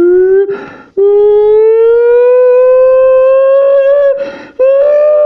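A boy's voice imitating a tornado siren through a toilet paper tube, echoing in a small bathroom: long wailing tones that slowly rise in pitch, broken by sharp breaths, with a new wail starting near the end.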